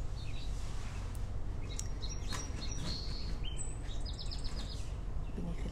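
Small birds chirping in short, high calls, with a quick run of repeated chirps about four seconds in, over a steady low background rumble.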